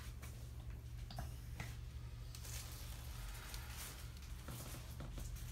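Quiet treatment room with a steady low hum, and faint rustles and a few small clicks of hands and clothing moving against the treatment table.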